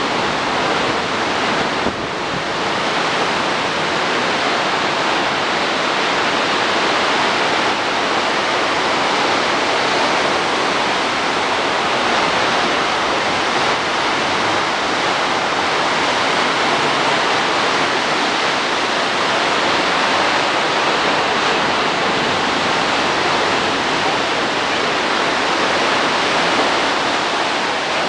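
Pacific Ocean surf breaking and washing up the beach: a steady, loud rush of water.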